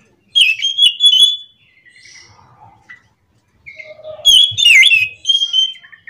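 An anis macan thrush singing in full voice: two loud bursts of quick, sweeping whistled notes, the second starting about four seconds in, with softer twittering notes between them.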